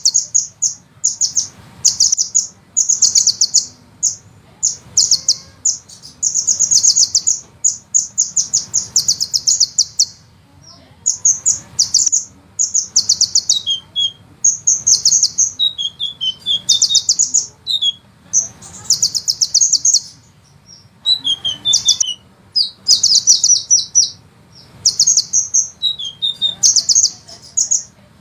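Sunbird song: rapid, high, rolling trills of quickly repeated notes, given in bursts of a second or two with short breaks, and a few lower falling notes between some bursts.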